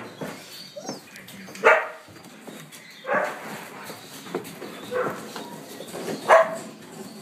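Newborn Border collie–whippet cross puppy crying: five short squealing cries about a second apart, the loudest about two seconds in and near the end.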